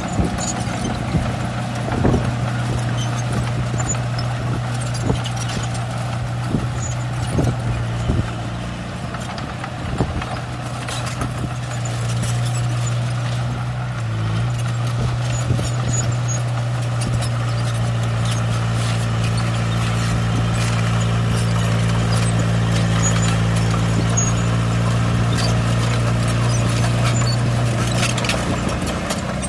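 Shantui bulldozer's diesel engine running steadily under load, with clanking and knocks from its steel tracks and the rock it pushes, thickest in the first half.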